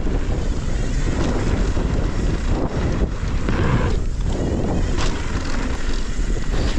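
Wind rushing over the microphone of a camera on a mountain bike riding fast down a dirt trail. Under it, a steady rumble of tyres on dirt with a few knocks and rattles from the bike.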